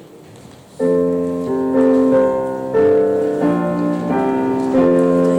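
Faint room noise, then less than a second in a keyboard instrument starts playing slow, sustained chords that change about once a second, a hymn-like postlude.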